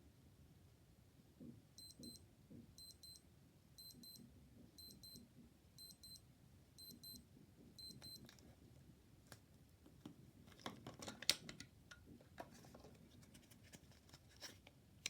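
Old digital watch alarm beeping faintly in short groups of rapid high beeps, about once a second, seven times over. The beeping then stops and is followed by a scattering of sharp clicks and knocks, the loudest a single snap about eleven seconds in.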